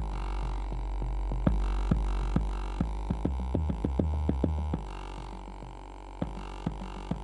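Legacy subwoofer playing a deep bass track: sustained low bass notes that step in pitch, with sharp clicks over them, the bass dropping away about five seconds in.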